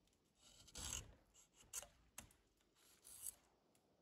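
Antique drawknife blade scraping across a thin strip of wood held in a vise: a few faint, separate shaving strokes, the strongest about a second in, with a sharp click between them.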